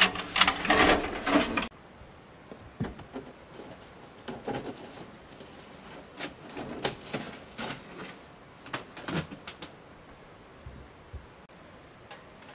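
Metal parts of a small homemade wood stove clattering as they are handled, then scattered faint knocks and taps.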